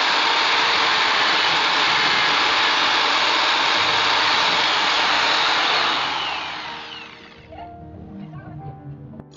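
Electric drill in a bench drill stand running as it bores into a steel motorcycle fork tube, then switched off about six seconds in and spinning down, its pitch falling. Quieter background music is left after it stops.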